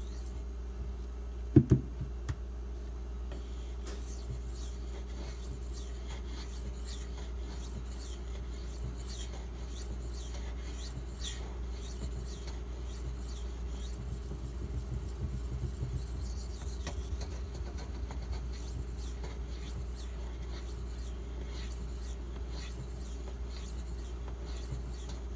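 A Maxamet steel knife blade stroked back and forth across a 1000-grit diamond-bonded waterstone: a long run of soft, evenly repeated scraping strokes. A couple of sharp knocks come about a second and a half in, before the strokes start.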